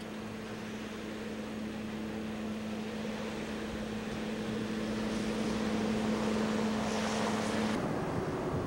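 Train running past with a steady hum and a rush of noise that grows louder. Near the end the hum cuts off suddenly, leaving wind noise on the microphone.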